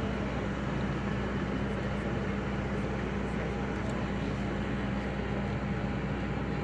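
Steady mechanical hum and rumble from a parked jet airliner on the apron, with a constant low drone underneath.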